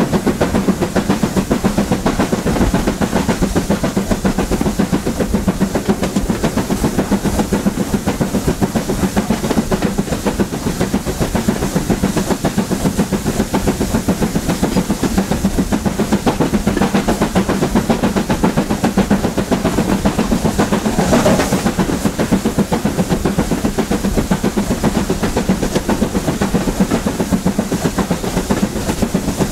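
Steam-hauled train behind BR Standard Class 7 'Britannia' Pacific 70013 Oliver Cromwell running along the line, heard from the carriages: a steady rumble with a fast, even clatter and steam hiss. A short, louder sound cuts in about two-thirds of the way through.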